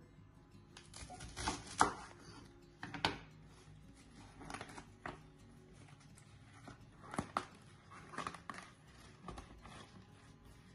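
Chef's knife cutting through the stem of a head of radicchio on a wooden chopping board, then the crisp leaves being split and torn apart by hand. A string of short crunches and snaps, the sharpest about two and three seconds in.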